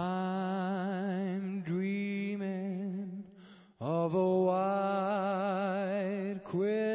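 Male voices singing a cappella in slow, long-held notes. A steady low note sits under higher voices that waver with vibrato, with a brief break about three and a half seconds in.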